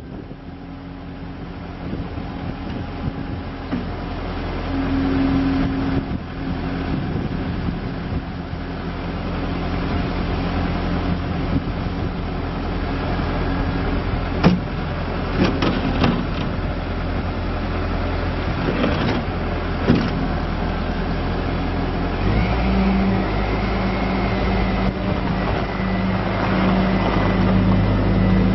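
2011 Bobcat S770 skid steer's diesel engine running steadily, with a few sharp clanks around the middle. About three-quarters of the way through, the engine note changes and gets louder.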